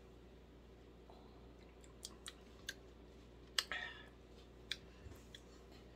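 Faint wet lip smacks and tongue clicks from a person tasting hot sauce, a handful spread over several seconds. The loudest, about three and a half seconds in, is followed by a short breathy exhale.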